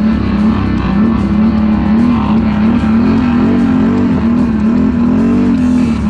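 ATV engine running under way on a gravel track, its pitch rising and falling about twice a second as the throttle works, with guitar music over it.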